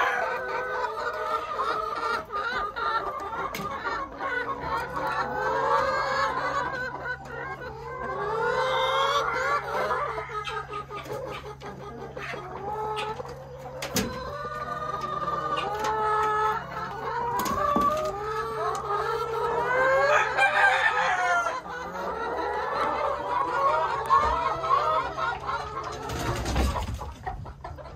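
A flock of brown laying hens clucking and squawking, with many overlapping rising and falling calls. A low steady hum joins from about five seconds in and stops a little past twenty seconds, and there are a few sharp clicks.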